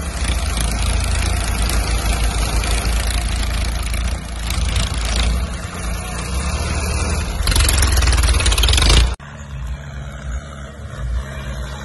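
Diesel tractor engines running hard under load as a tractor pulls another tractor stuck in a flooded paddy field. About nine seconds in the sound drops suddenly to a quieter engine running through the mud.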